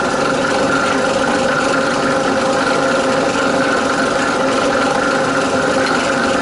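Rebuilt bench drill press running steadily under power, its electric motor and vee-belt drive giving an even hum with a whine. The motor has been rewired to turn the right way, and the drill sounds powerful.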